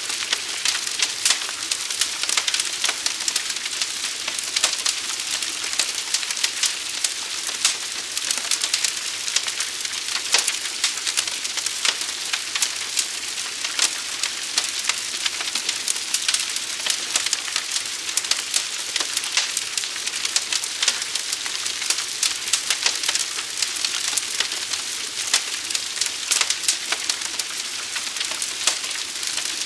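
Forest fire crackling: a dense, irregular run of sharp pops and snaps over a steady high hiss.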